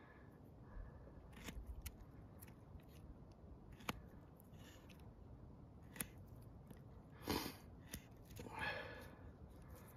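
A QSP Bison knife's flat-ground D2 blade slicing dry-cured salami on a wooden board: faint, scattered clicks and soft cuts as the blade goes through the sausage and taps the wood. A louder, brief rustle comes about seven seconds in.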